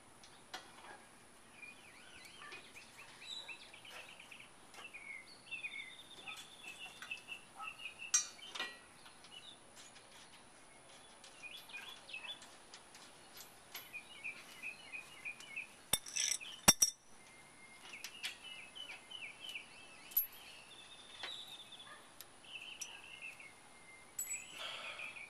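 Birds chirping and trilling steadily in the background, with scattered sharp metallic clinks of a wrench working on the side-step bolts under the truck, the loudest a pair of clicks about two-thirds of the way in.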